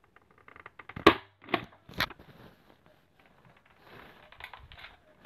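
Nerf AccuStrike AlphaHawk dart blaster being primed and fired: a loud sharp clack about a second in, two more clacks within the next second, then lighter plastic handling clicks.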